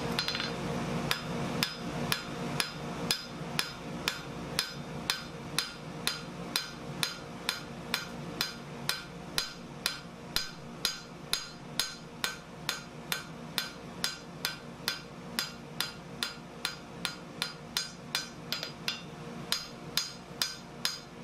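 Blacksmith's hand hammer striking a red-hot steel bar on an anvil in a steady rhythm of about two blows a second, each blow with a short metallic ring, drawing out the flat fishtail end of a forged hook.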